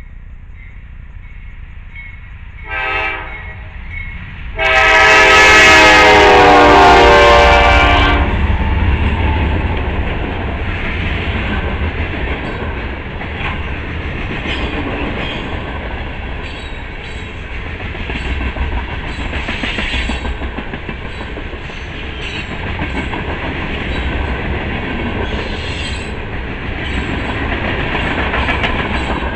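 CSX freight train's diesel locomotive horn: a short blast about three seconds in, then a long, loud blast of about three and a half seconds. The train then rolls past, its boxcars and tank cars making a steady rumble and clickety-clack of wheels over the rail joints.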